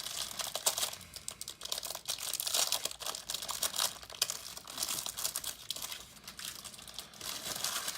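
Crinkling and rustling of a trading-card pack's wrapper being handled and opened, with irregular crackling and small clicks throughout.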